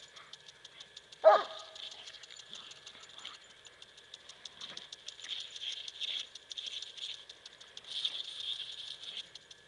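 A dog gives one short bark about a second in, the loudest sound here. Under it runs a steady hiss of water spraying from a garden hose onto the grass, with fine pattering.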